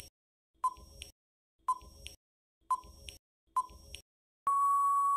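Countdown-timer sound effect: four short beeps about a second apart, then one longer steady beep near the end that signals the time is up.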